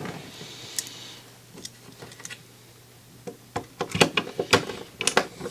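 Small clicks and taps of a screwdriver and metal parts as an opened CD player's chassis is being screwed back together: a few scattered clicks at first, then closer together and louder in the last two seconds.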